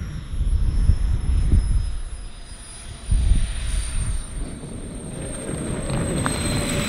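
Four JetsMunt 166 turbines of a giant RC model Airbus A380 running at low power on landing, a high-pitched whine that falls slowly as the model comes in over the grass and rolls out. Under it, an uneven low rumble that swells twice, about a second in and again about three seconds in.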